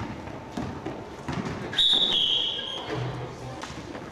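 Referee's whistle blown once, a single shrill blast of just under a second about two seconds in, dropping slightly in pitch. Basketball bounces and footfall thumps sound on the gym floor around it.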